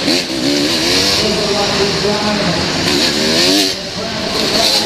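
125 cc motocross bike's engine revving hard on the throttle, its pitch rising and falling several times through corners and shifts, heard from an onboard camera with wind rush over it.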